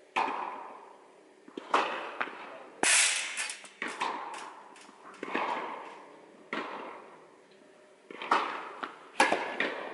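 Tennis balls struck by rackets and bouncing on the court: a series of sharp pops roughly every second, each ringing on in the echo of a large indoor tennis hall, the loudest about three seconds in.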